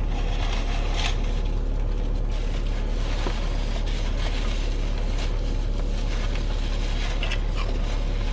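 Steady low hum of a car idling, heard from inside the cabin, with a few faint clicks and rustles.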